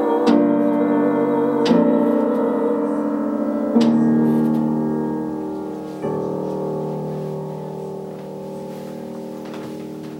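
Upright piano playing the closing chords of a song: four chords struck about two seconds apart, the last one held and left to fade away.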